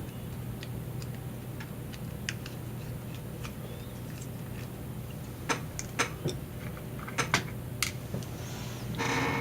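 Small, sharp clicks and taps of a precision screwdriver and tiny screws against a phone's metal frame during disassembly. They are scattered at first and come more often in the second half, with a brief rustle near the end, over a steady low hum.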